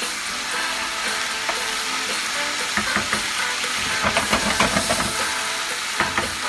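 Rice, onion and tomato sizzling as they fry in a nonstick pan, with a wooden spoon stirring and scraping through the mixture. The scraping strokes come thickest from about three seconds in, over the steady sizzle.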